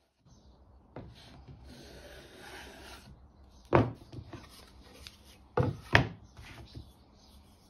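Hand rubbing along the oak-edged edge of an MDF panel for a couple of seconds, then sharp wooden knocks of tools and the panel on the workbench: one about four seconds in and two close together near six seconds, with lighter taps between.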